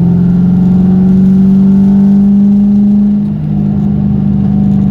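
1998 Mustang Cobra's 4.6-litre DOHC V8 running under way, its revs climbing slowly, then dropping about three seconds in and holding steady at a lower pitch.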